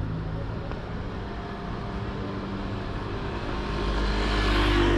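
A car engine running close by on the street, growing louder near the end as the car passes.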